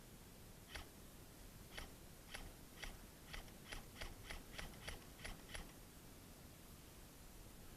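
A string of about a dozen short, sharp clicks, spaced irregularly and coming faster after the first few, then stopping about two seconds before the end.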